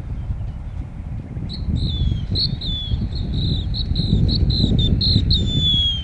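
Wind rumbling on the microphone, with a run of short, high-pitched whistled chirps starting about a second and a half in, several of them gliding downward in pitch.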